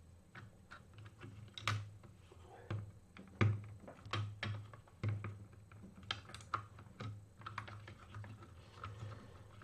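Keys being pressed on a GK61 hot-swap 60% mechanical keyboard with Kailh Box Pink clicky switches and PBT keycaps. It is an uneven run of sharp clicks, a few a second, with short pauses between them.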